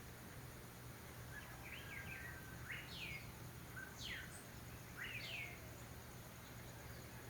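Oriole (calandria) calling: a short run of clear whistled notes, one held level and several sliding steeply down in pitch, over a steady low background hum.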